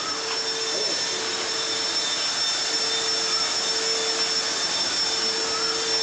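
A small motor running steadily: an even whir with a constant high whine over it.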